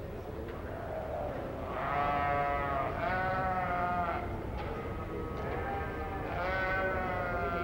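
Katahdin ewes bleating: a run of several long bleats, each about a second, two of them back to back near the middle, over a low steady background rumble.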